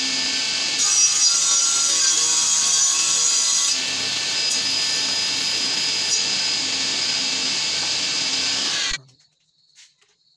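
Sliding table saw running and cutting through a chipboard panel. The sound is louder and higher for about three seconds, starting about a second in, then runs steadily, and stops abruptly near the end.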